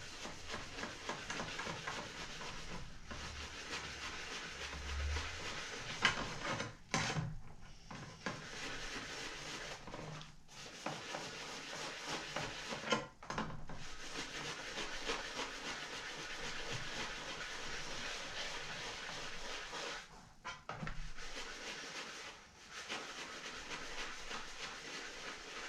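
Water spraying and running over a circular saw blade as it is rinsed clean, a steady hiss that stops briefly a few times.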